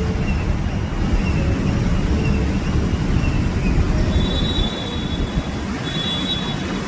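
Steady low rumble of road traffic. About four seconds in, a high, thin two-note squeal starts, breaks off briefly and comes back.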